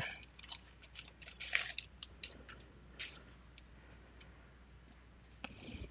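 Faint, scattered crinkling and tearing of a 1991 Fleer basketball card pack's paper wrapper being pulled open by hand, with light clicks of the cards being handled.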